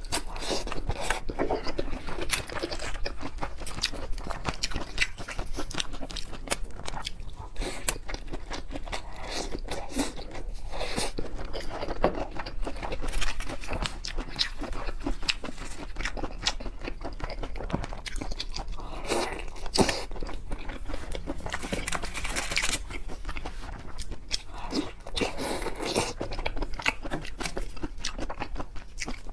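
A person eating a seafood platter of black tiger shrimp close to the microphone: continual biting, crunching and chewing, made of many small, quick clicks and crackles.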